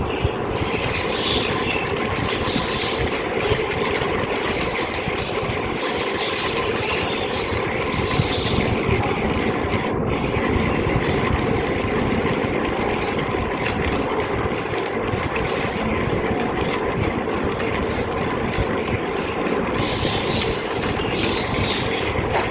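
1Zpresso JX-Pro manual burr grinder being cranked by hand, grinding coffee beans at a fine espresso setting: a steady, unbroken grinding noise.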